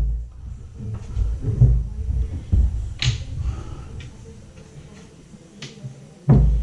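Wooden cabinet door and hinge being handled and fitted: a few sharp clicks and knocks, the loudest near the end, with low thuds of wood being moved between them.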